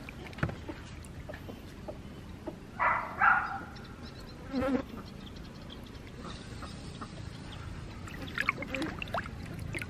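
Water sloshing and splashing in a stainless steel basin as hands rub and rinse raw squid, with a few sharper splashes near the end. A brief, louder pitched sound comes about three seconds in, and a shorter one just before five seconds.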